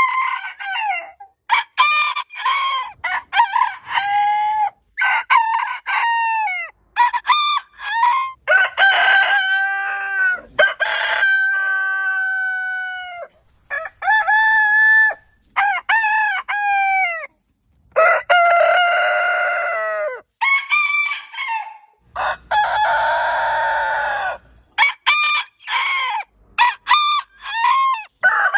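Roosters crowing one after another, several long drawn-out crows among shorter calls.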